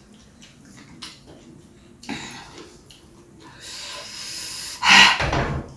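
A person eating chilli-hot sambal rice by hand: faint mouth clicks and smacks, then a long hiss of breath drawn in from about three and a half seconds in. Near the end comes a loud, sharp burst of breath.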